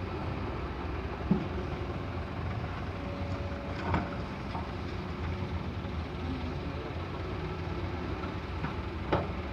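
An excavator's diesel engine running steadily while loading sand, with three sharp knocks spread through the clip.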